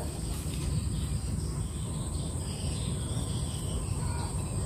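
Steady outdoor background: a constant high-pitched insect drone over a low rumble, with no distinct snips or calls standing out.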